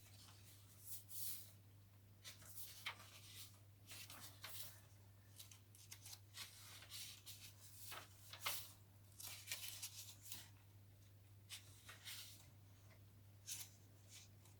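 Faint rustling and crinkling of paper pages and cards in a handmade junk journal as they are turned and handled, in short scattered rustles over a low steady hum.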